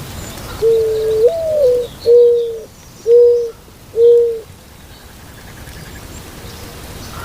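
White-winged dove cooing: one long low coo that steps up in pitch partway through, then three short hoots about a second apart.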